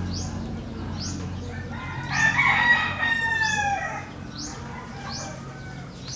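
A rooster crowing once, a long call starting about two seconds in that falls in pitch at its end. Short high bird chirps repeat about twice a second behind it.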